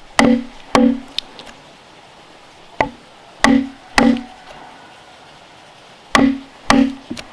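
Iron chisel being driven into a log by blows on its top, cutting a notch: sharp knocks each with a short hollow ring, mostly in pairs about half a second apart, seven in all with one lighter tap between the pairs.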